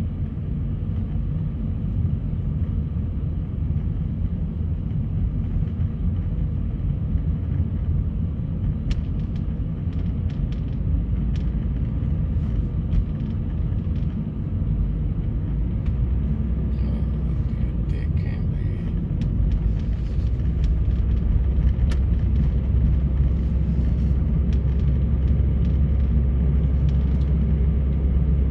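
Car being driven: a steady low rumble of engine and tyres, growing louder in the second half.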